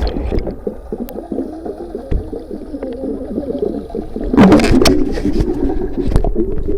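Water sloshing and gurgling, choppy and continuous, with a louder noisy stretch about four and a half seconds in.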